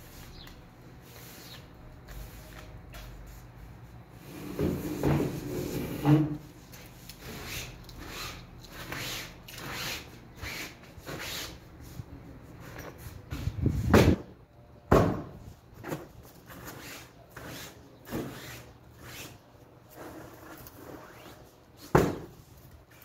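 A broom sweeping sand dust across a stone-tiled walkway in short, rhythmic strokes, about two a second, broken by several loud knocks and bumps. The loudest knocks come just past the middle and near the end.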